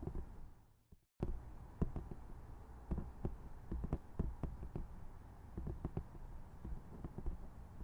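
Soft, irregular tapping close to the microphone: a quick, uneven run of light taps and clicks. The sound cuts out briefly about a second in, then the tapping resumes.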